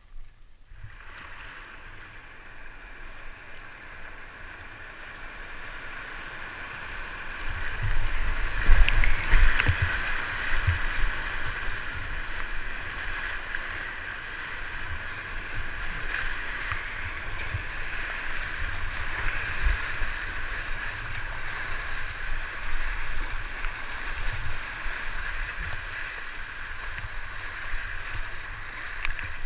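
Rushing whitewater of a river rapid churning around a kayak, with paddle strokes and waves splashing against the hull. It grows louder about eight seconds in, then settles to a steady rush.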